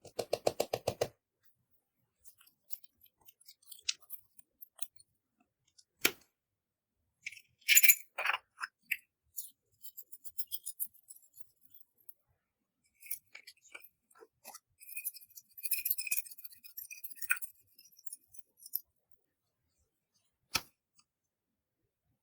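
Small clicks, clinks and crackly scraping from makeup containers and tools being handled and slime being worked. It opens with a quick run of clicks, has single sharp clicks about six seconds in and near the end, and louder bouts of scraping around eight seconds in and again from about fifteen to eighteen seconds.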